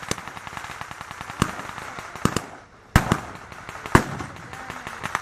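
Blank small-arms gunfire: a rapid crackle of distant shots with a few loud close shots, the loudest about three and four seconds in, after a brief lull.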